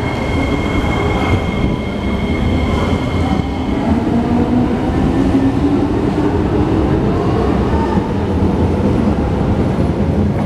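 East West Line metro train moving along the platform with a steady low rumble of wheels on rail. A high steady whine fades out after a few seconds, and a lower motor whine rises in pitch midway as the train picks up speed.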